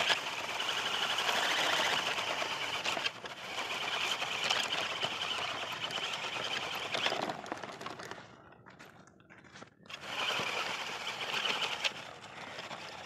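Small electric motor and plastic gearbox of a battery-powered toy tractor whining steadily as it drives through sand pulling a loaded trailer. The whine breaks off briefly about three seconds in, fades for a couple of seconds near the end, then picks up again.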